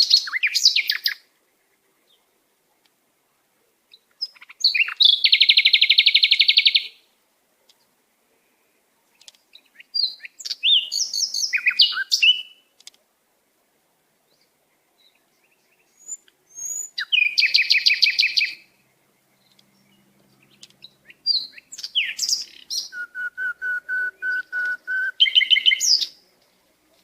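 A songbird singing in five separate phrases of fast high trills and chirps, with pauses of a few seconds between them; the last phrase includes a run of evenly repeated notes at about four a second.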